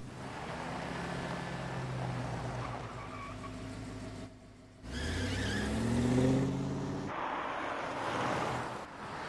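Ford Mustang engine running as the car drives along the road. About five seconds in it revs up with a rising pitch, followed by a loud rush of tyre and road noise as the car passes.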